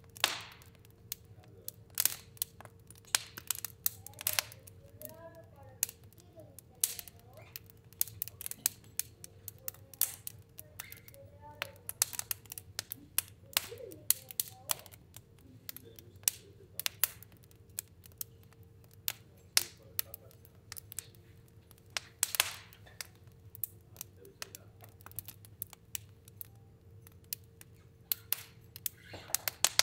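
Fire burning in a stove, crackling with irregular sharp pops, some much louder than the rest, over a faint steady hum.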